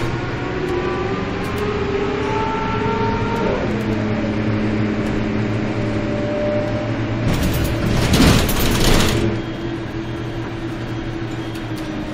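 Karosa B931 city bus's diesel engine running under way, heard from inside the bus, its note stepping down once about a third of the way in. Past the middle a loud rushing noise rises over it for about two seconds, then fades.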